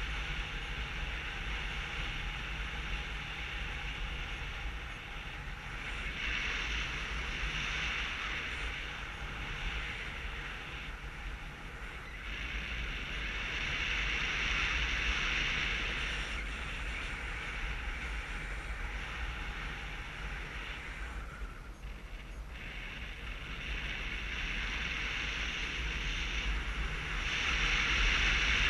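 Airflow rushing over a GoPro's microphone during a paragliding flight, a steady rush with a low rumble that swells louder several times, loudest near the end.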